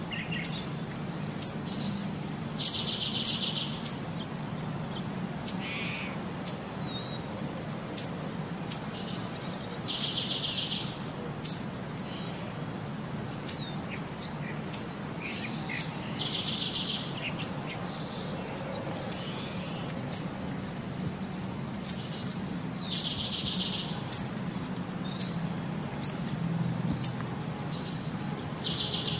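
Looped birdsong track: short high chirps and a trill repeating in the same pattern about every six and a half seconds, over a faint steady low hum.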